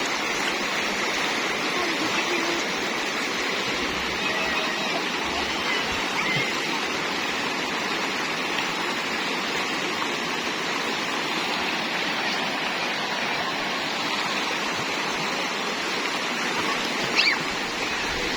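River water rushing steadily. A brief, sharper sound stands out a little before the end.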